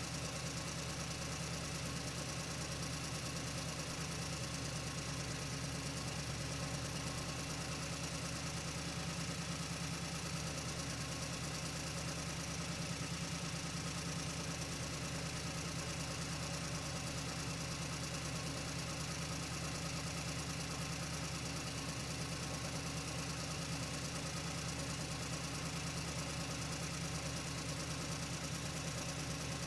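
Truck engine running at a steady, unchanging pitch, with a strong low drone.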